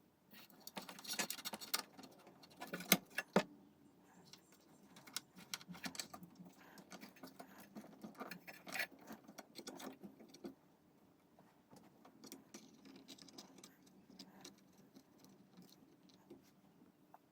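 Irregular clicking, tapping and light rattling of small hard parts being handled, with two sharper clicks about three seconds in. The clicks thin out and grow fainter after about ten seconds.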